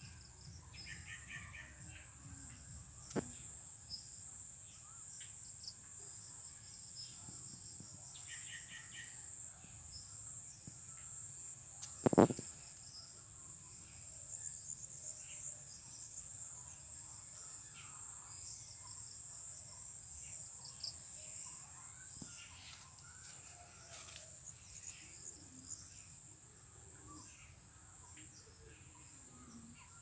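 Steady evening chorus of insects, a continuous high shrill trill with a fine pulse, with a few short bird chirps early on and around the middle. A single sharp knock about twelve seconds in stands out above it.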